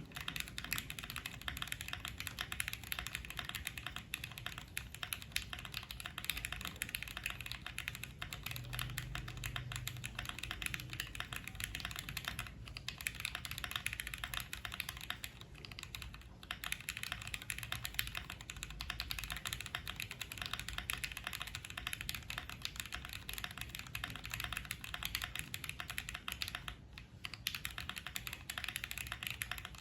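Monsgeek M1 mechanical keyboard with Gateron switches being typed on rapidly, a steady stream of soft, creamy keystroke clacks, with brief pauses three times.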